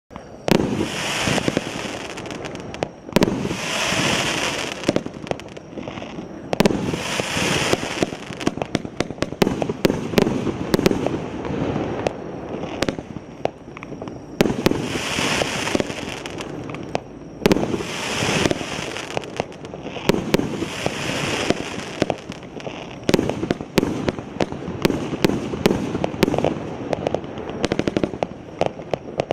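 PIROFF 'Главный праздник' consumer firework cake firing: a fast, dense series of sharp launch pops and bursts. Every few seconds there is a loud hissing burst lasting about a second.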